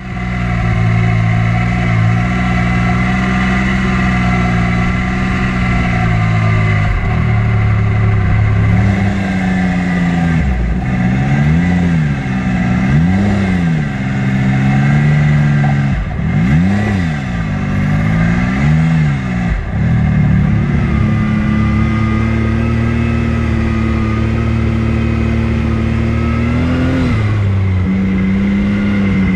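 Off-road vehicle's engine running while riding: a steady drone at first, then a series of quick throttle rises and falls through the middle, then steady again with one more brief rise near the end.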